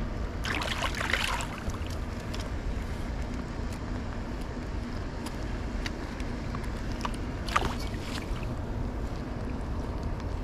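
Water splashing as a netted trout thrashes in a landing net at the surface, a burst lasting about a second starting half a second in, with a short sharp knock near the end, over a steady low rumble.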